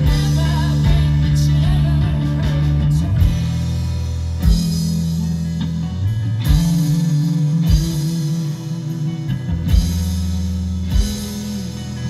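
Live band playing rock music: banjo and electric guitars over bass and drum kit, with accented drum-and-cymbal hits every second or two in the second half.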